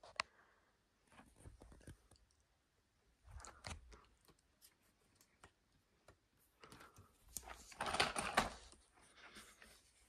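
Handling noise: scattered plastic clicks and knocks as a Bissell stick vacuum is pulled out from among other vacuum cleaners and brought onto the carpet. The loudest knocking and rustling comes about eight seconds in.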